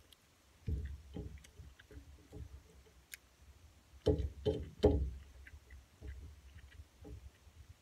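Sounds of a person eating by hand at a table: irregular low thumps and knocks, with a cluster of three louder ones a little past the middle and a few faint clicks.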